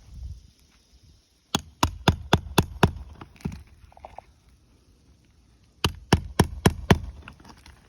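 Footsteps on an asphalt-shingle roof: two quick runs of sharp knocks, about four a second, one starting a second and a half in and another near the end.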